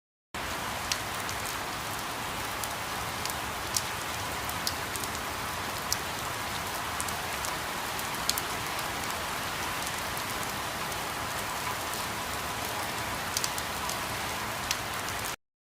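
Steady rain with scattered louder drop impacts, starting abruptly and cutting off suddenly near the end.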